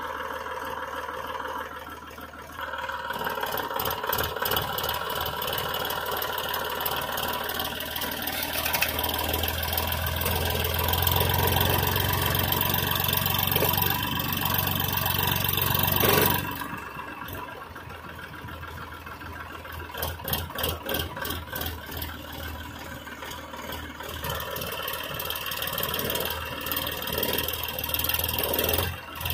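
Tractor diesel engine running and revving up from a few seconds in, loudest about halfway through, then dropping back abruptly at about 16 seconds to a lower, uneven run.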